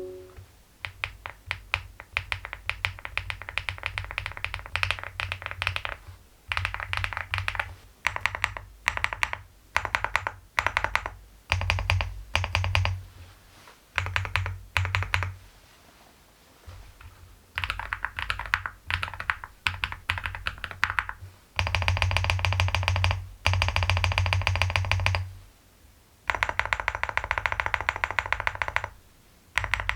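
Typing on a Leobog Hi75 full-aluminium mechanical keyboard with Silyworks Hyacinth V2U switches and MOA keycaps. The fast keystrokes come in bursts of a second to a few seconds with short pauses between, the densest runs a little past the middle.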